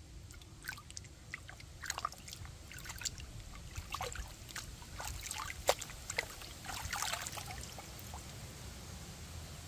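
Water splashing and dribbling in a basin as hands wash and pull apart raw squid, in irregular small splashes that die down near the end.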